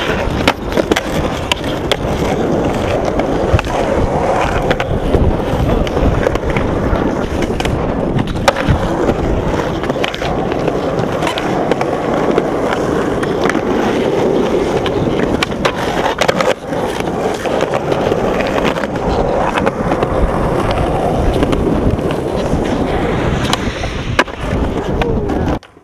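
Skateboards rolling over rough concrete, with the scrape of trucks grinding a ledge and many sharp clacks of boards popping and landing. The sound breaks off suddenly at the end.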